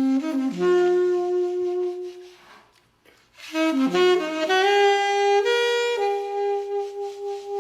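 Saxophone playing a slow meditative line of long held notes, breaking off for a moment about three seconds in, then climbing through a short run of notes into one long held note.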